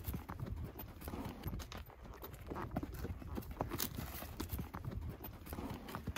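Horses walking, their hooves clopping at an uneven pace on dry sandy, stony ground.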